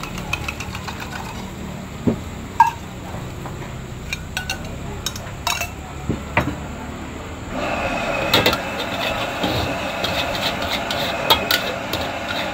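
Metal spatula knocking and scraping in a steel wok. About halfway through a steady hiss of frying sets in under the clatter.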